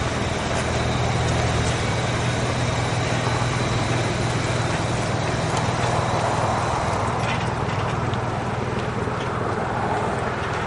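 Motorhome engine running with a steady low hum as the RV pulls slowly away.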